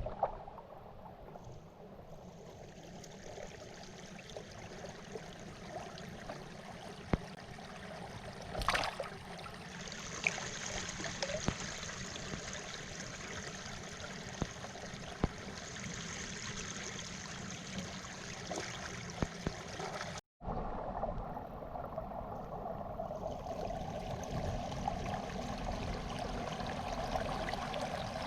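Floodwater running and trickling steadily, with scattered small knocks and splashes and one sharper splash about nine seconds in.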